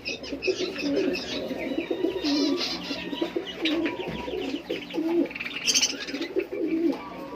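Pigeons cooing over and over, mixed with a constant high chirping of many small cage birds.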